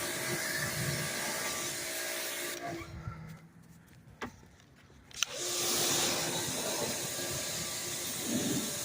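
Pressure washer spraying water onto a brake rotor and wheel, a steady hiss with a pump hum. It stops for about two and a half seconds near the middle, with a click in the pause, then starts spraying again.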